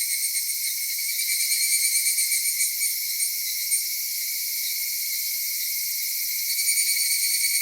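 Cicadas singing in a dense, high-pitched buzzing chorus, swelling louder for a couple of seconds early on and again near the end.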